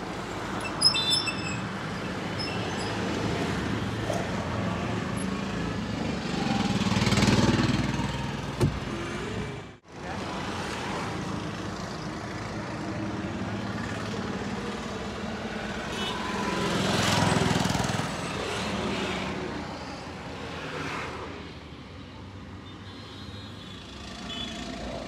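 Road traffic noise with a steady rumble that swells louder twice, around seven and seventeen seconds in, and a short high beep about a second in. The sound cuts out for a moment near ten seconds in.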